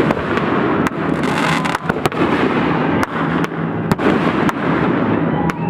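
Fireworks show: sharp bangs come several times a second at irregular spacing, over continuous crackling.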